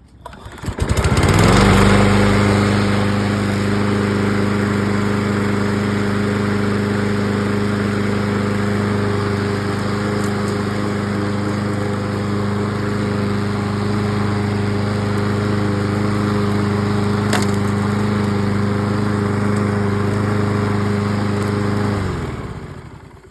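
Craftsman push mower's single-cylinder Kohler engine starting, coming up to speed within about a second and running steadily, its carburetor freshly cleaned. Near the end it shuts off and winds down.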